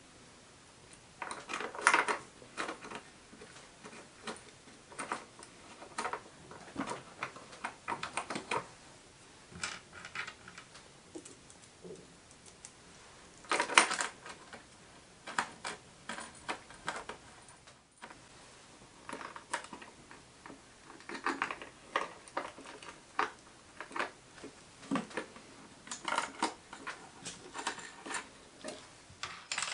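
Irregular small metallic clicks and clinks of an Allen key, screws and washers as a bracket is screwed onto the back of a digital readout unit, with a sharper clack about two seconds in and again about fourteen seconds in.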